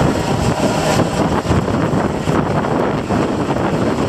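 Coast Guard helicopter's rotor and turbine noise, a steady rumble that grows duller about a second in as it flies farther off, mixed with wind buffeting the microphone.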